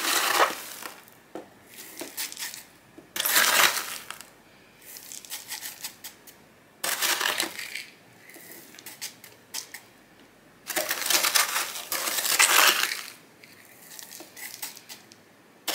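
Plastic scoop digging into a bin of dry perlite and pouring it into a plastic container: gritty, crunching rattles in four bursts, with quieter rustling between.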